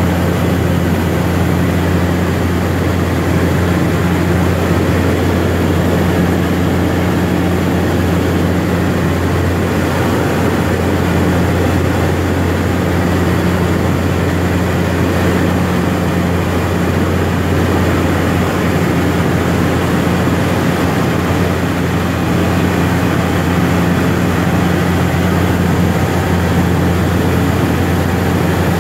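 A DHC-3 Turbine Otter's GE H80 turboprop engine and propeller in flight, heard inside the cockpit: a loud, steady low drone with no change in power.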